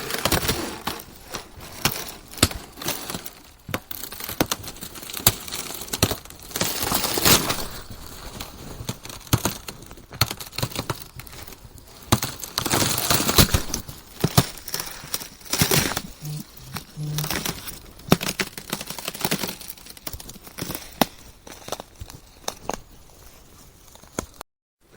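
Ice cracking and crunching: a dense run of sharp cracks and crackles, with several louder crunching stretches.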